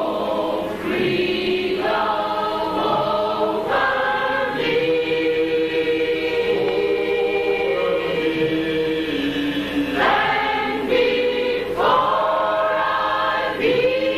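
A choir singing slow, sustained notes, with one long chord held through the middle.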